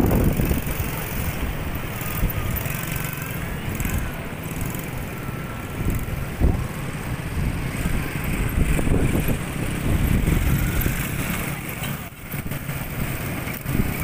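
Small quad bike's engine running as it is ridden past, its pitch rising and falling.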